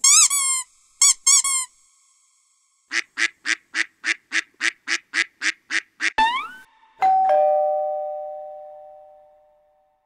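A string of sound effects: three short, high, wavering squeaks, then a quick run of about a dozen short honking notes at about four a second, a rising glide, and about seven seconds in a two-tone doorbell chime, 'ding-dong', that rings out and fades over about three seconds.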